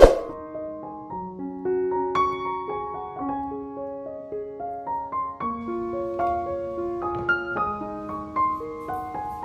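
Gentle piano background music, with notes held and stepping through a slow melody. A single sharp clink sounds right at the start.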